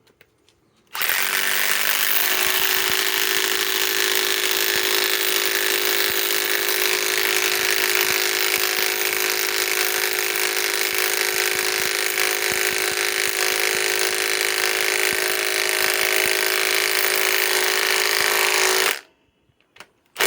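Milwaukee M18 Fuel 3/8-inch compact impact wrench hammering continuously as it drives a 4-inch lag screw. It starts about a second in, runs for about 18 seconds and stops suddenly near the end.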